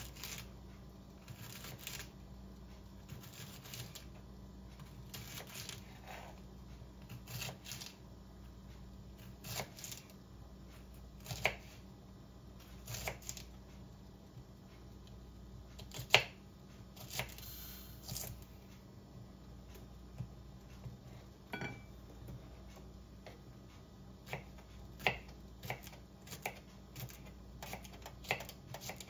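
Beef strips cooking in a covered frying pan: faint scattered pops and ticks at uneven intervals over a low steady hum, with one sharper pop about 16 seconds in.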